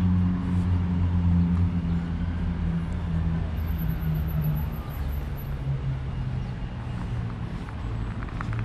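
Road vehicle engine humming as it passes, slowly fading and dropping in pitch about halfway through, with a few faint clicks near the end.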